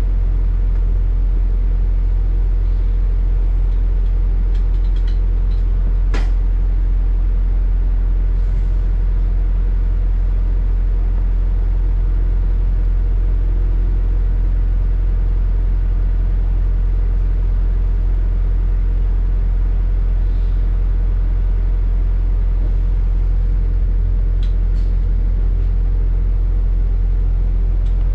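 London double-decker bus running, heard from inside: a steady low engine and road rumble, with a single sharp click about six seconds in.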